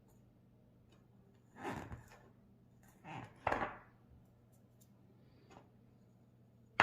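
Short scraping handling sounds as the opened firecracker tube and its powder are worked over: three scrapes about two, three and three and a half seconds in, over a faint steady hum.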